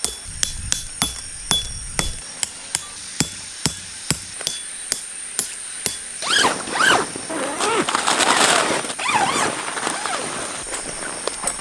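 A hammer striking metal tent pegs into gravel, a sharp ringing tap two to three times a second. About six seconds in the tapping stops, and louder rustling and shuffling of the heavy tent canvas takes over.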